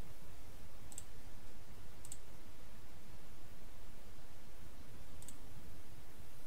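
Three sharp computer mouse clicks, about a second in, two seconds in and past five seconds, over a steady low background hum.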